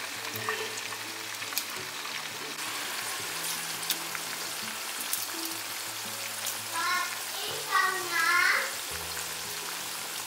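Background music with low held notes and a short melodic phrase near the end, over a steady hissing sizzle of corn fritters frying in oil.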